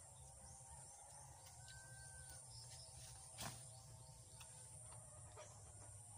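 Near silence: faint outdoor background with a steady high hiss, one short faint whistle-like tone about two seconds in, and a soft click past the middle.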